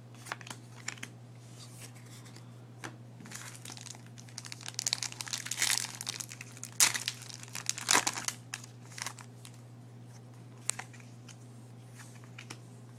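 Foil booster-pack wrapper crinkling and being torn open by hand, with a burst of sharp crackles in the middle stretch and lighter rustles before and after. A low steady hum runs underneath.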